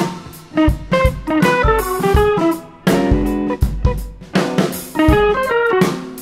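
Background music: a plucked guitar playing quick runs of notes over a drum kit beat.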